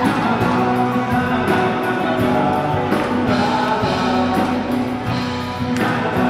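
Live acoustic Christian rock band playing, with acoustic guitars strummed in a steady rhythm and a flute over them.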